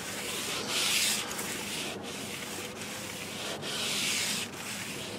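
Paper towel wet with isopropyl alcohol wiping back and forth over a car's painted door sill: several hissing rubbing strokes, cleaning the surface before adhesive sill trim is applied.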